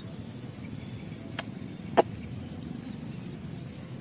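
Two sharp clicks, a little over half a second apart, over a steady low rumble.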